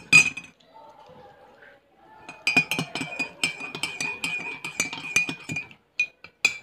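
Metal teaspoon stirring coffee in a ceramic mug, clinking rapidly against the inside with a bright ringing tone for about three seconds. A couple of sharp taps come at the start and a few more near the end.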